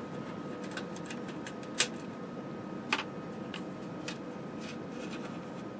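Scattered small metallic clicks and ticks of little nuts and lock washers being worked off a metal panel by hand, over a faint steady hum. The two sharpest clicks come about two and three seconds in.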